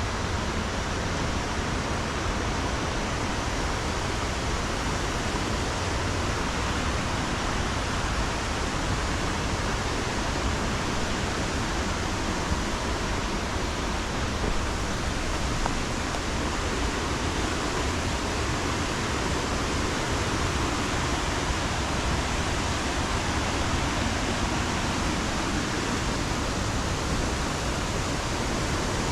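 Steady rushing of the Housatonic River's rapids and waterfalls, an even unbroken wash of water noise.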